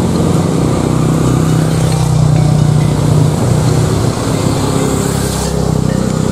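Road traffic crossing the bridge close by: a motor vehicle's engine running, growing louder about two seconds in and easing off after about four seconds, over a steady rushing noise.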